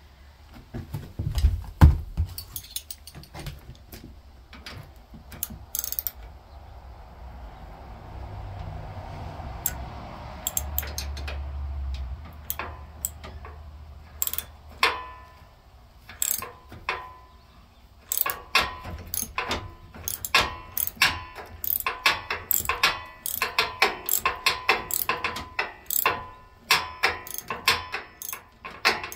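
Hand ratchet clicking in quick runs of short strokes as a loosened steering nut on a yard tractor is backed off. A couple of heavy knocks about two seconds in are the loudest sounds.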